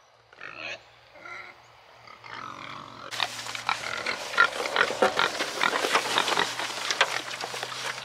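Pigs grunting softly, then from about three seconds in, a crowd of pigs chomping and smacking noisily at a feed trough as they eat pasta salad.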